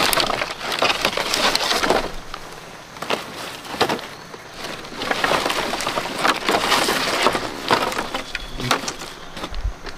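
Dry cut branches knocking and scraping against one another as they are gathered into a bundle of firewood, with many sharp irregular clicks and rustling.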